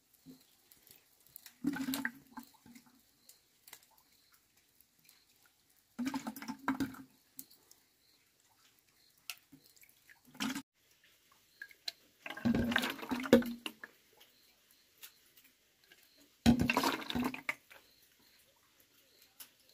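Hot rendered pork lard ladled from a pot and poured into a glass jar, in about five separate pours with pauses between them.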